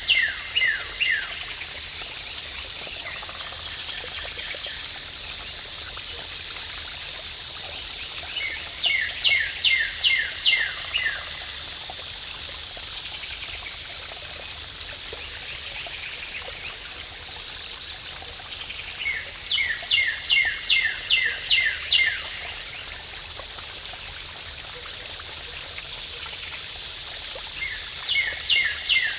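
Steady rush of falling water, with a bird singing a quick phrase of about eight short downward-sliding notes roughly every ten seconds, three times over; the phrase comes back identically each time.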